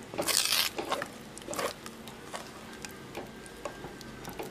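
Thick ground-rice batter being stirred with a spoon in a stainless steel bowl: wet squelching with scattered taps and scrapes of the spoon against the steel, loudest in a short noisy scrape just after the start.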